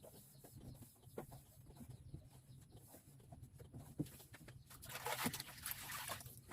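Faint scattered clucking bird calls, with a brief hissing rush of noise about five seconds in.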